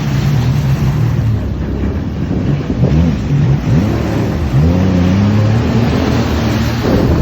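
Jet ski engine running under way, its pitch rising and falling several times as the throttle changes, over a steady rushing noise.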